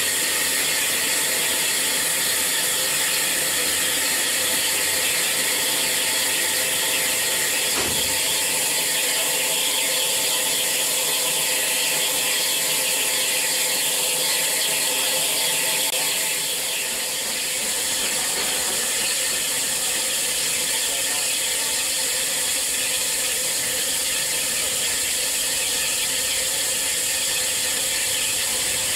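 Steam locomotive hissing steadily with steam, with a faint rattling edge to it and a single faint knock about eight seconds in.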